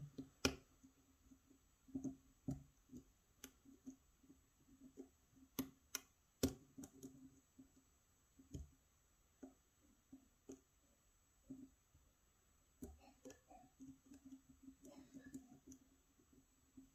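Faint, irregular metallic clicks and light scraping of a hook pick working the pin stacks inside a pin-tumbler challenge lock cylinder under turning tension, probing rear pins that keep binding.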